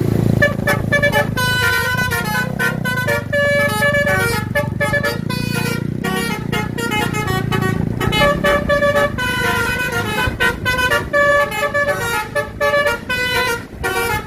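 Bus 'telolet basuri' musical air horn playing a melody of short stepped notes, over the low rumble of the bus engine.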